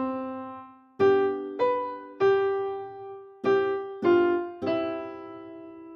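Piano playing a short melody: a held note dies away, then two groups of three struck notes about half a second apart, with the last note left to ring out near the end.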